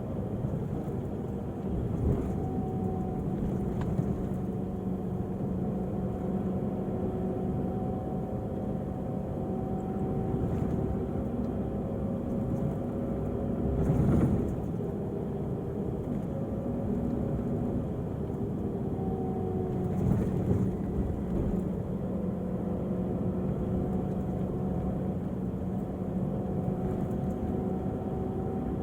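Volvo-chassis Irizar i6s coach's diesel engine running with a steady drone, its pitch shifting slightly a few times. A brief louder knock about 14 seconds in, with smaller ones near the start and about 20 seconds in.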